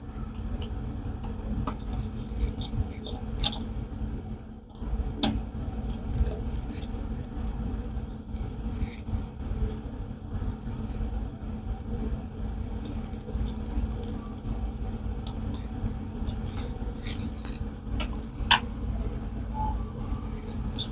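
Small RC crawler wheel and tire parts being handled and fitted by hand: scattered light clicks and taps over a steady low hum.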